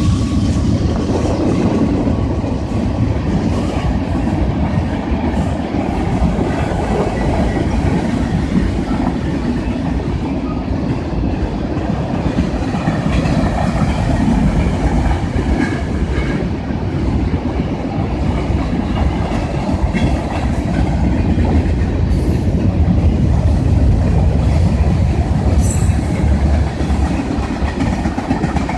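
Freight train rolling past: a steady loud rumble of the cars, with wheels clicking over rail joints.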